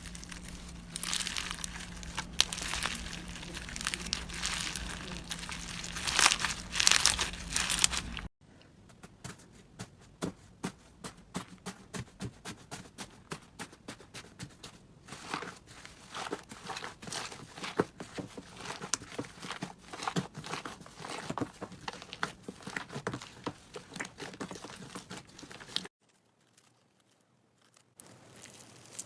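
Slime being squeezed, stretched and poked by hand, giving dense crackling and popping with many small clicks. It is louder for about the first eight seconds, then cuts suddenly to quieter, finer clicking, with a brief near-silence before louder crackling starts again near the end.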